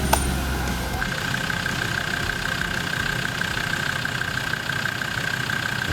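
Off-road vehicle engine running steadily, with a deep rumble that drops away about a second in. A steady high-pitched whine sets in at the same moment and holds on.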